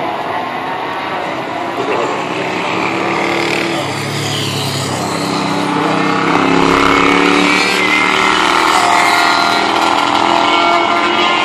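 Vintage racing motorcycle engines going round the circuit, several at once, their pitch rising and falling as the riders rev through the gears; they grow louder about halfway through as the bikes come nearer.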